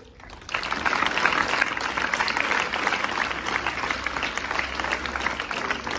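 Audience clapping, starting about half a second in and keeping up steadily.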